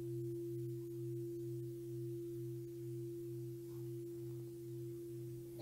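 A Buddhist bowl bell ringing out after being struck: a long, steady hum of a low tone and a higher tone, the low one wavering slowly, fading gradually.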